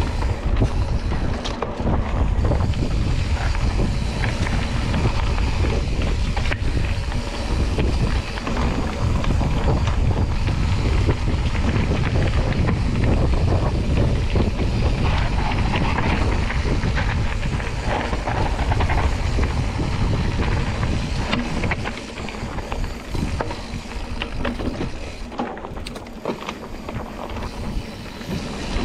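Wind buffeting the microphone of a camera riding on a mountain bike, with knobby tyres rolling over a dirt trail and the bike rattling and knocking over bumps. The noise eases somewhat about three-quarters of the way through.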